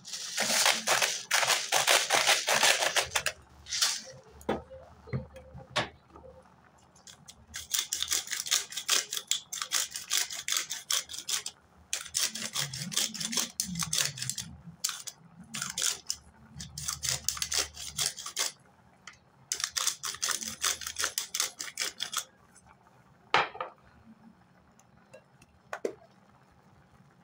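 Pepper grinder being twisted over raw tuna steaks: about five bursts of rapid grinding clicks, each a few seconds long, with short pauses between and a few single clicks near the end.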